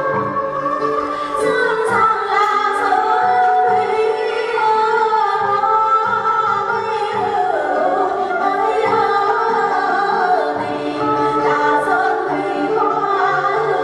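Women singing a traditional Vietnamese folk song live with the water puppet theatre's traditional instrumental ensemble. The voices are held and ornamented, and there are a few sharp clacks of hand percussion.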